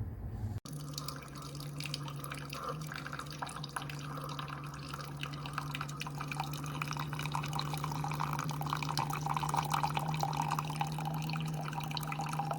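Keurig K-Supreme coffee maker brewing: its pump hums steadily while coffee streams and drips into a cup. The sound starts abruptly about half a second in.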